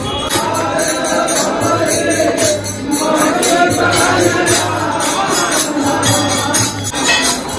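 Hindu devotional song: singing over a steady jingling beat of hand percussion.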